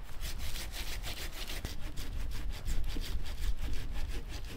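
Hand saw cutting through a dead log, in quick, even back-and-forth strokes.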